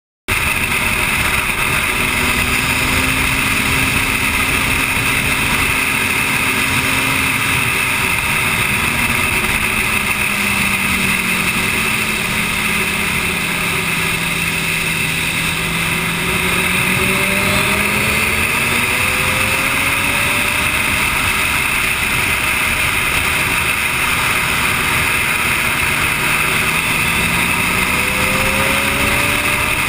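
Motorcycle engine at speed, recorded onboard, under heavy wind noise. Its pitch falls as the bike slows into a corner about halfway through, rises as it accelerates out, and rises again near the end.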